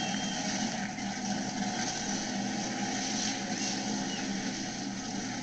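The Monster Patrol monster truck's engine running steadily at low speed, a dense, even rumble with no sharp revs.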